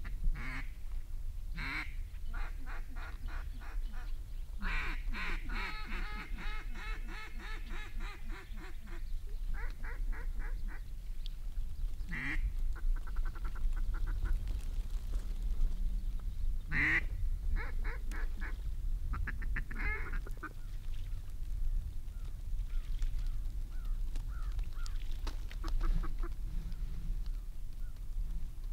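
Ducks quacking, with runs of rapid chattering calls in quick even pulses and a few loud single quacks, thinning out after about twenty seconds.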